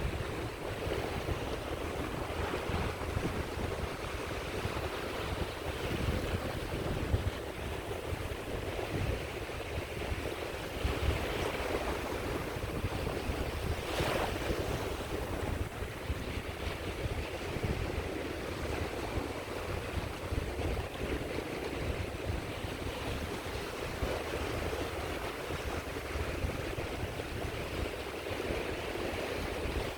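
Sea waves washing onto a beach: a steady wash of surf, with a low wind rumble on the microphone and one brief click about halfway through.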